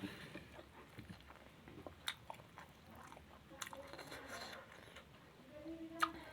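Close-up chewing and biting of food, with soft wet mouth smacks and a few sharper clicks.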